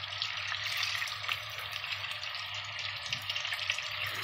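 Chicken drumsticks frying in melted butter and sunflower oil in a stainless steel pot: a steady sizzle with small crackles of spattering fat.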